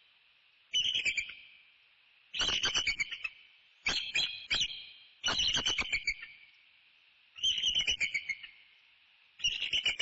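Bald eagle calling in six bouts of rapid, high chittering notes, each bout lasting about a second, about every one and a half to two seconds. These are repeated alert calls, typical of an eagle reacting to an intruder near the nest.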